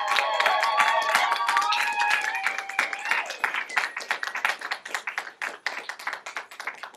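Audience clapping after a dance, with several high voices whooping and cheering for the first two seconds or so. The clapping then thins out and fades.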